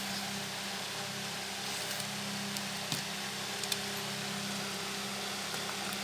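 Steady low hum over a soft hiss, with a few faint light clicks, about three seconds in and again a little later, as the plastic car charger is handled and opened.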